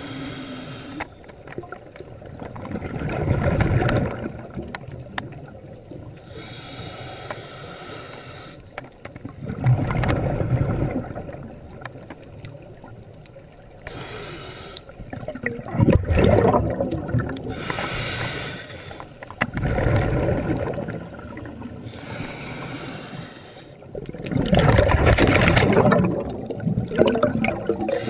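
Scuba diver breathing through a regulator underwater. Five exhalations come at intervals of a few seconds, each a loud rush of bubbles lasting a second or two, with a fainter hiss of inhaling between them.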